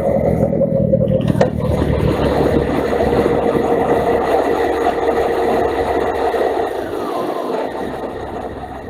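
Motorcycle running at road speed with steady wind rush on the bike-mounted camera's microphone, with a single sharp click about a second and a half in; the sound fades down near the end.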